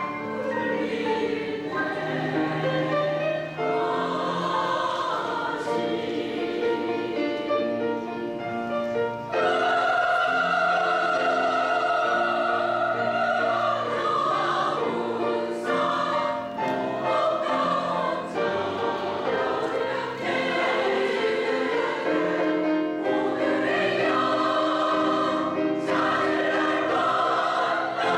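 Women's choir singing in sustained harmony, the sound growing fuller and louder about nine seconds in.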